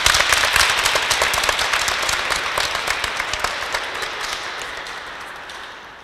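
Audience applause, loud at first and gradually dying away near the end.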